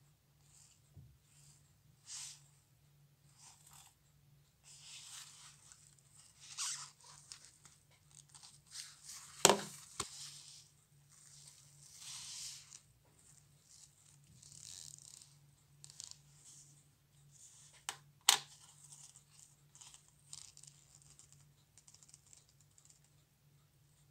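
Textured work gloves rustling and scraping against a small 1930s Junghans wristwatch as its case is worked open, with two sharp clicks, about a third of the way through and again near three-quarters, as the metal case parts come apart. A faint low hum runs underneath.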